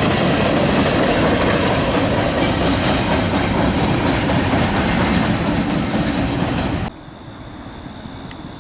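Freight train cars rolling past close by, a loud steady rumble and clatter of wheels on rail. About seven seconds in it cuts off suddenly to a much quieter background with faint steady high-pitched tones.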